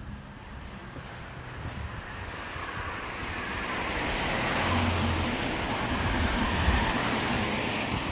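A car driving past on a wet road: engine and tyre noise build over several seconds, are loudest about five to seven seconds in, then begin to fade.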